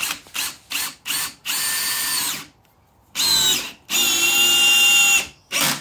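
Makita cordless drill-driver driving a screw into a bifold door frame. The motor whines in a few quick short bursts, then in three longer runs of about a second, half a second and a second and a half, and once more briefly near the end.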